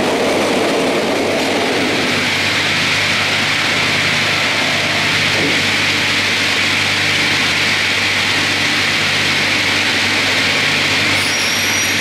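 StrojCAD D9 double-bladed circular sawmill running: a steady, loud machine noise with a low hum. It is heavier for the first two seconds while the carriages and boards move along the rail feeder, and a few brief high squeaks come near the end.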